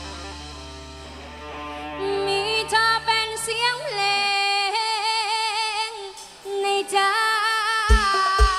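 Mor lam sing band music: a woman sings long, wavering held notes over sustained chords, and drum hits come in near the end.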